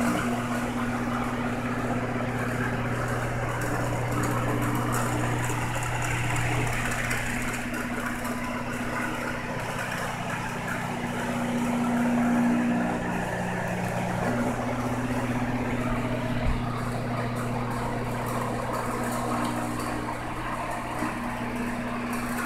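Aquarium pump or filter humming steadily, with a wash of water noise over it. One light bump about two thirds of the way through.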